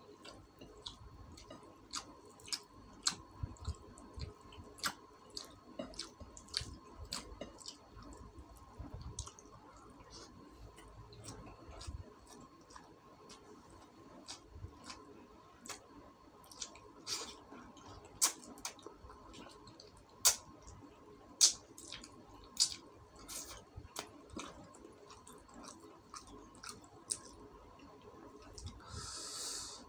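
Close-miked chewing and mouth smacking of rice and chicken eaten by hand, with many short sharp clicks scattered irregularly, over a faint steady hum. A brief hiss comes near the end.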